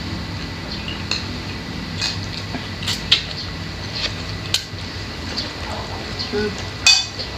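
Eating by hand at close range: chewing and mouth clicks with scattered sharp clicks and taps of food and dishes, the loudest near the end, over a steady low hum.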